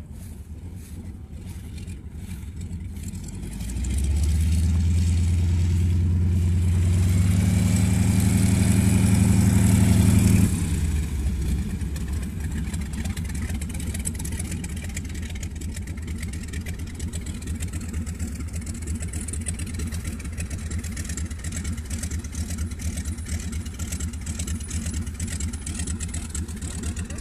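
Light aircraft piston engine and propeller at high power close by, swelling in loudness for several seconds and then dropping off sharply about ten seconds in. Afterwards a lower, steady engine running from a tow plane taxiing on the grass.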